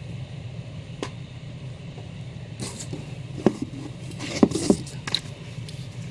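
Rustling and a few light knocks as comic books are handled and pulled out of a cardboard shipping box, over a steady low hum.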